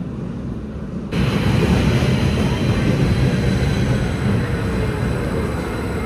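Metro train running, its noise jumping suddenly louder about a second in, with a faint motor whine falling gently in pitch.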